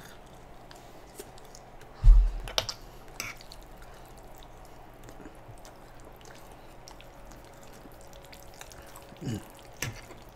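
Close-miked eating sounds: wet mouth clicks and chewing. About two seconds in there is a dull thump followed by a few sharp clicks, and a couple of short smacks come near the end.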